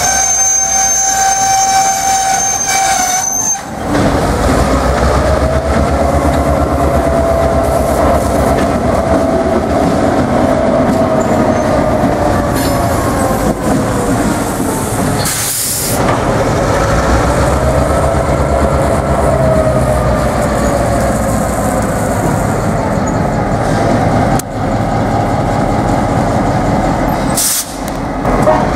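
Diesel switcher locomotive running at low speed, its engine making a heavy low rumble, with a squeal from the wheels that rises and falls in pitch. A steady high tone sounds for the first few seconds and cuts off abruptly. There are short hisses about halfway and near the end.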